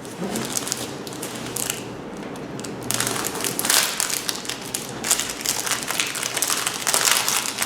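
Packaging of a diamond-painting kit crinkling and crackling as it is handled, in irregular bursts that grow busier about three seconds in.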